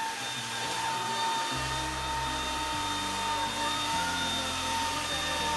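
Cordless stick vacuum cleaner running steadily, a constant high motor whine over a rushing hiss of air, with background music playing underneath.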